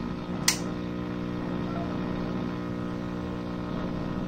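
Steady mains hum from the Emerson 7BS-409 tube radio's speaker, with a single sharp click about half a second in.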